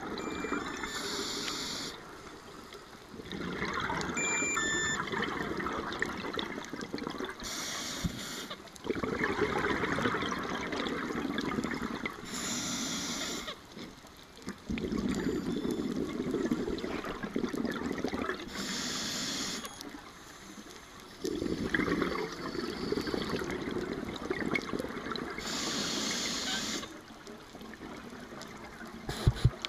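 Scuba diver breathing through a regulator, heard underwater: a short hiss on each inhale, five times, with a long rush of exhaled bubbles between breaths.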